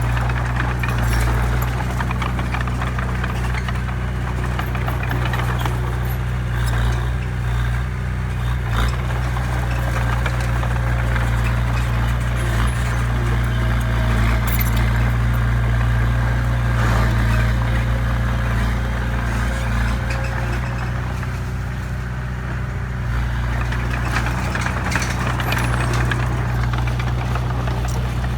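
A heavy diesel engine running steadily at a constant speed, with a low, even hum.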